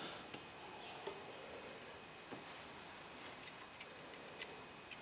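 Faint, irregular small clicks and taps of iPhone 4 parts and tools being handled during a screen replacement.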